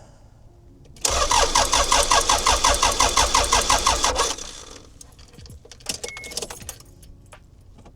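Toyota Hiace KZH106's 1KZ-TE turbo-diesel being cranked by the starter motor in a rhythmic chug, about five beats a second. The cranking stops after about three seconds. This is the first start attempt after a replacement, recapped ECU was fitted.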